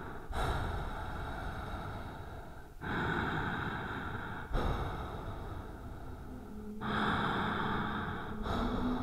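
Heavy breathing: long breaths in and out, each lasting about two seconds. A low steady tone joins in during the second half.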